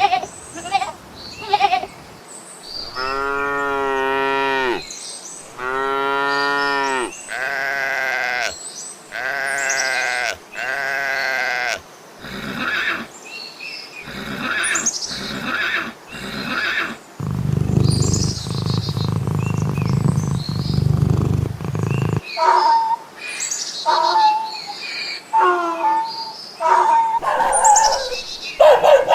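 Farm animals calling one after another: a series of separate calls, including two long, drawn-out calls of about two seconds each near the start and a lower, rougher call of about five seconds in the middle.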